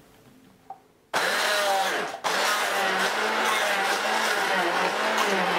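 Hand-held immersion blender switched on about a second in, its blades chopping peeled tomato pieces in a plastic jug. It cuts out for an instant about a second later, then runs on steadily, puréeing the tomatoes.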